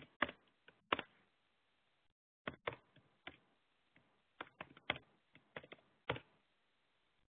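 Typing on a computer keyboard: irregular key clicks in two runs, with a short pause about two seconds in, stopping just before the end.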